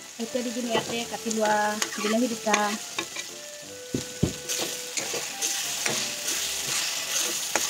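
Steel ladle stirring and scraping ground masala frying in oil in an iron kadai, with clicks and knocks against the pan. About four seconds in, chopped tomatoes are tipped into the hot oil and the sizzling grows louder as they are stirred in.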